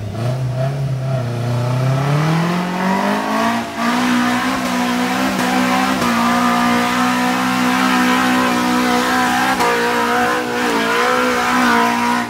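Off-road jeep's engine revving hard under load on a steep dirt climb. Its pitch rises steadily over the first few seconds, then holds at high revs, with a short dip about ten seconds in.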